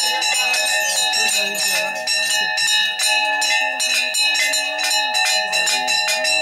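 Temple bells rung fast and continuously during worship: several strikes a second over a steady metallic ringing, with voices underneath.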